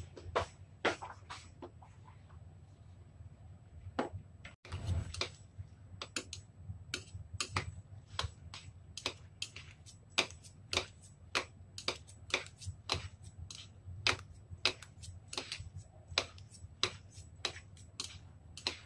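Metal chopsticks clicking against a ceramic bowl as instant noodles are tossed and mixed with their seasoning. A few clicks come at first, then a steady run of about two sharp clicks a second from about five seconds in.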